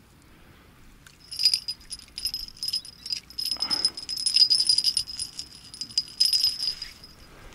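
Small bite-alarm bell on a bottom-fishing hand line (zakidushka) jingling in quick irregular shakes as the line is tugged. It starts about a second in and stops about a second before the end.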